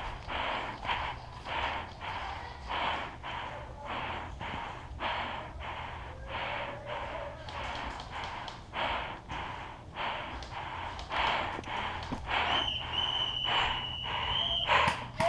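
A person panting hard, about two breaths a second. A steady high tone comes in for a couple of seconds near the end.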